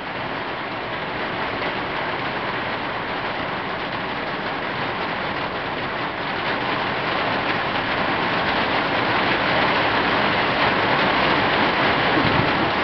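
Rain falling on a tin roof: a steady hiss that slowly grows heavier and louder.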